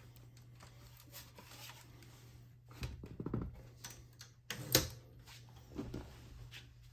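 A 1959 Smith Corona Sterling portable typewriter being handled and moved: scattered light knocks and metal clicks, a few dull thuds, and one sharper clunk a little past the middle.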